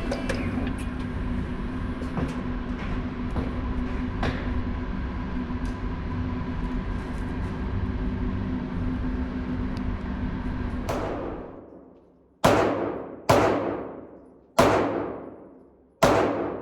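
A steady rumbling background with a low hum, which ends about eleven seconds in. Then five revolver shots fired double action, each a sharp crack with a decaying echo, spaced about a second apart.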